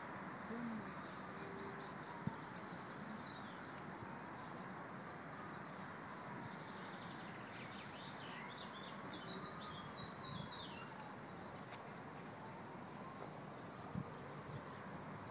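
Small birds chirping in quick phrases over a steady hum of outdoor background noise, with a faint tone that slowly rises and falls several times.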